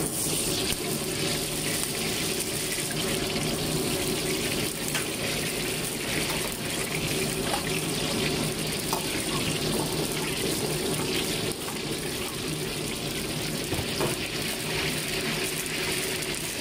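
Oil heating and sizzling in a wok over a gas burner, a steady hiss with a few light clicks of a metal ladle.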